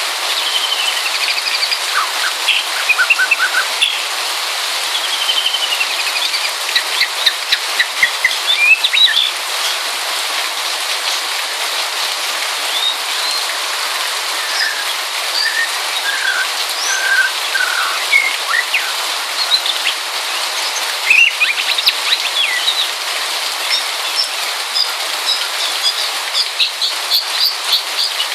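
White-rumped shama singing a varied run of short, clear whistled notes and glides, over the steady patter of light rain. The notes come in a quicker series near the end.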